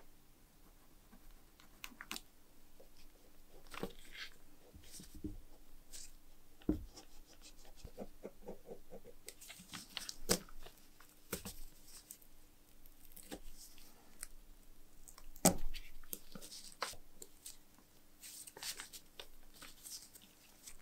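Hobby knife blade scraping and picking softened paint off a metal part, with gloved hands rubbing and rustling on newspaper: irregular scrapes and crackles broken by sharp clicks, the loudest about three-quarters of the way through.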